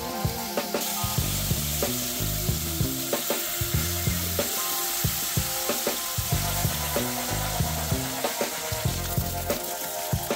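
Bacon strips and pork sausages sizzling and spitting in a hot electric skillet, a steady crackling hiss. Background music with a stepping bass line and light percussion plays underneath.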